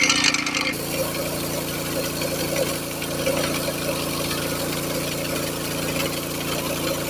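Engine-driven rail cutting saw: a harsh, bright cutting noise stops abruptly under a second in, and the machine's engine then runs on with a steady hum.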